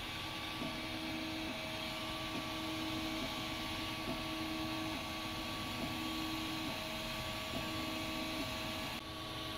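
Ultimaker 3D printer running a print: the stepper motors whine in steady tones that shift and break every second or so as the print head changes moves, over a steady hiss that drops a little near the end.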